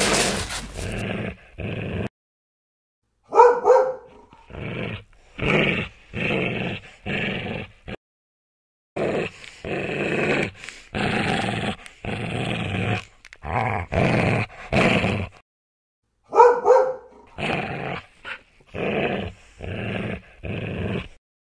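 Dog sound effect: a run of short growls, roughly one a second, in three groups separated by brief silences.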